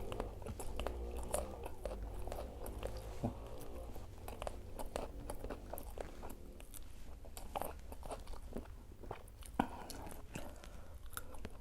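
Close-miked chewing and biting of a crispy fried vegetable fritter (bakwan), with irregular sharp crunches throughout and one louder crunch near the end.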